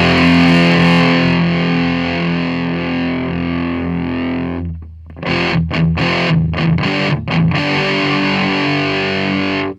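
Electric guitar played through a breadboarded two-stage 2N5088 transistor distortion circuit into a small 30-watt bass amp, giving a distorted tone. A held chord rings for about four and a half seconds, then comes a run of short choppy chords, then another held chord that cuts off suddenly at the end.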